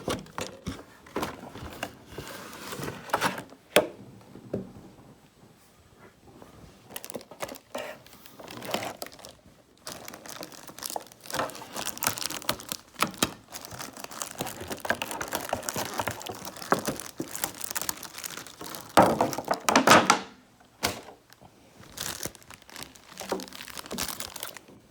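Plastic packaging crinkling and tearing as it is pulled off a boxed figure by hand, in irregular rustling bursts with one sharp knock a few seconds in; the loudest rustle comes about three quarters of the way through.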